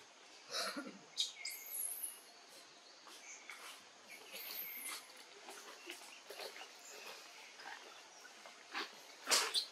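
Forest birds giving short, high, falling chirps, with scattered clicks and rustles from the branches; the loudest is a sharp rustle shortly before the end.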